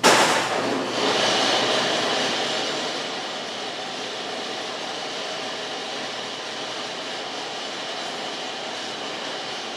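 Wood-Mizer LT50 band sawmill sawing a hackberry log: the noise of the running mill and blade cutting starts abruptly, is loudest for the first couple of seconds, then settles into a steady run with a high whine.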